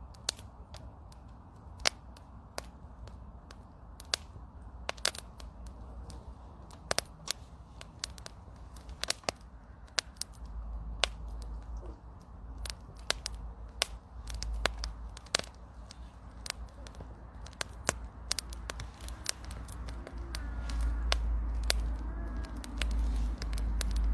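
Wood campfire crackling, with frequent sharp, irregular pops and snaps. A low rumble swells in the second half and is loudest near the end.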